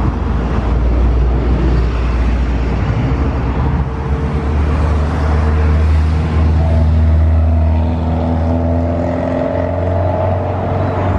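Condor jet airliner taxiing close past, its engines running at taxi power: a steady low rumble with engine tones over it, and a whine that comes up about eight seconds in as an engine goes by.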